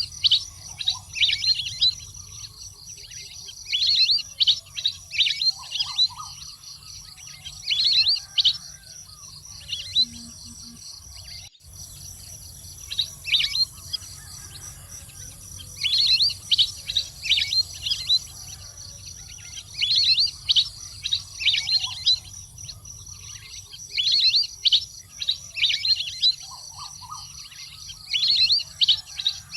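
Waterfowl calling: bouts of several quick, high chirps, each sweeping downward, repeated every few seconds over a steady high-pitched whine.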